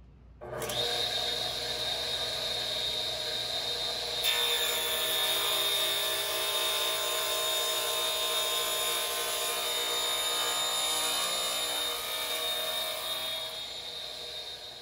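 A 1956 DeWalt MBF radial arm saw's induction motor starts about half a second in and runs with a steady high whine. From about 4 s its blade is pulled through a board in a crosscut, adding the sound of the blade cutting wood. The motor eases off near the end.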